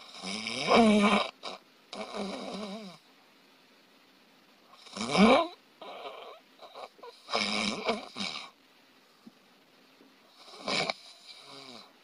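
A sleeping person snoring loudly and irregularly, about half a dozen rasping snores of uneven length, each with a pitch that rises and falls. This is the 'danger' stage of snoring, in which the airway is narrowed and apneas appear.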